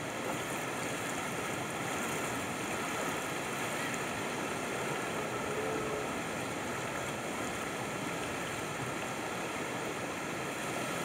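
A river in flood rushing steadily: an even, unbroken noise of fast, turbulent floodwater.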